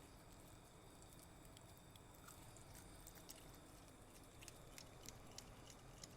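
Near silence with faint, sparse clicks: a small pet chewing its food.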